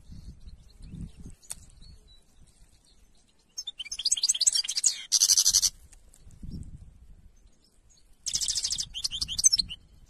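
European goldfinch singing: a rapid run of high notes about four seconds in, lasting about two seconds, and a shorter run near the end.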